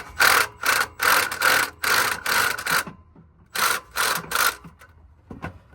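Cordless impact wrench fired in short bursts, about two a second, then a brief pause about three seconds in before three more bursts.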